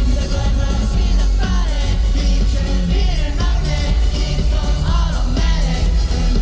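A live K-pop song played loud through a concert PA: a heavy bass beat under a sung lead vocal.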